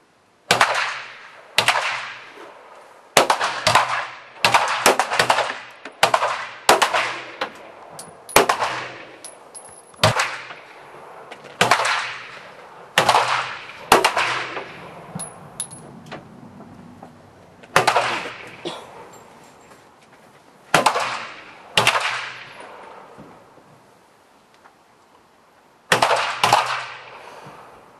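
Pistol shots from several shooters firing at their own pace along a firing line, about twenty irregularly spaced reports, each ringing out for a second or more under the range roof. A gap of about four seconds comes near the end before a last pair of shots.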